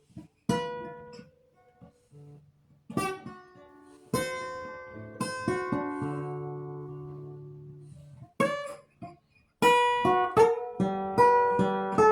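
Acoustic guitar: single chords strummed and left ringing to fade out, then a quicker run of strummed chords near the end.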